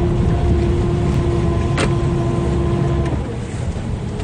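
Small boat's engine running under way, a steady low rumble with a steady hum over it that stops about three seconds in. A single sharp click about two seconds in.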